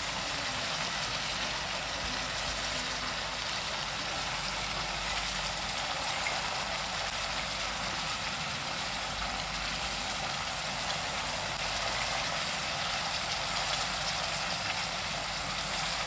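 A steady, unbroken rumble and hiss, like a machine or fan running, with no clear events in it.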